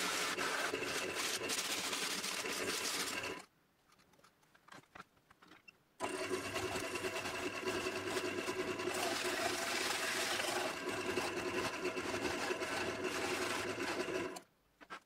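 Bowl gouge cutting a spinning pine bowl blank on a wood lathe: a steady hiss of shavings over the hum of the lathe. It drops away abruptly about three and a half seconds in, comes back just as suddenly about six seconds in, and cuts off again near the end.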